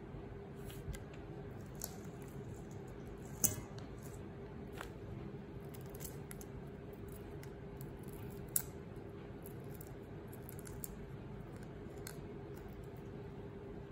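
Raw shrimp being peeled: scattered small clicks and soft crackles of shells coming off, with two sharper clicks, one about three and a half seconds in and one near eight and a half seconds, over a faint steady hum.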